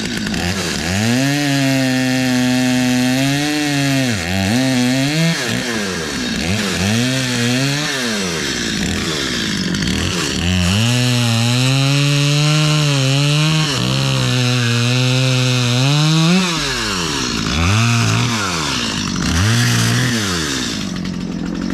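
Stihl chainsaw cutting into a large log, held at full throttle in the cut for a few seconds at a time and repeatedly easing off and revving back up.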